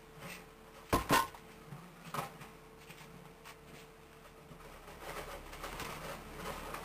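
Two sharp knocks in quick succession about a second in, then a lighter knock, over faint steady room hum, followed by soft rustling.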